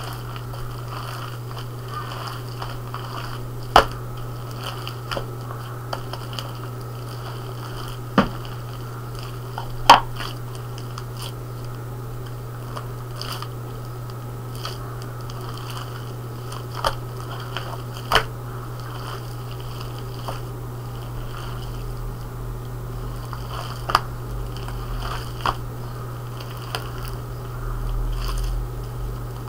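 Hands kneading and squeezing fluffy slime: wet squishing with a sharp pop every few seconds as air is pressed out, over a steady low hum.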